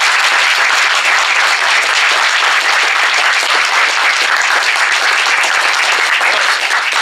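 Audience applauding: many hands clapping together in dense, steady applause.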